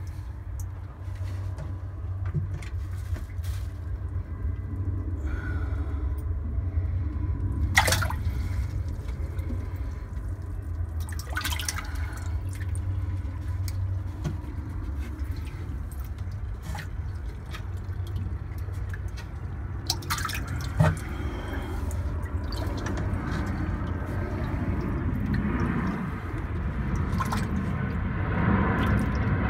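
Water sloshing and splashing in a boat's live-well tank of fish, over a steady low hum, with a few sharp knocks.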